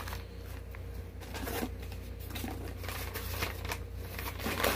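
Paper and cardboard packing rustling and crinkling as hands rummage through a shipping box, in irregular handfuls with a louder crinkle near the end, over a steady low hum.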